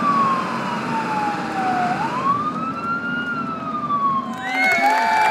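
Ambulance siren wailing. It slides slowly down in pitch, rises again and falls once more. Other sliding tones come in near the end.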